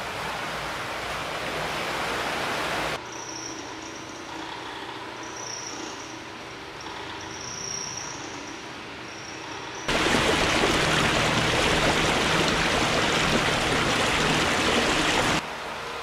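Ford F-150 Lightning electric pickup's tyres driving through shallow standing water, a steady rush of splashing water. It drops abruptly to a quieter stretch about three seconds in, with faint high chirps, then comes back louder near the end.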